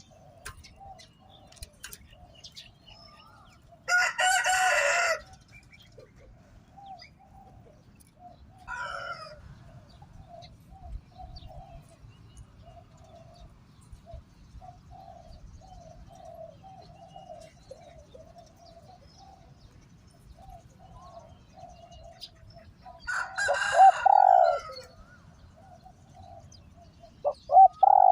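Spotted doves cooing in short, soft, repeated phrases, broken twice by a loud rooster crow, once about four seconds in and again near the end.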